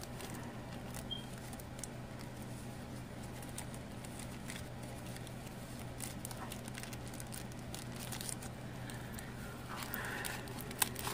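Faint, scattered crinkles and light taps of a clear plastic pocket and card stock being handled, over a steady low hum.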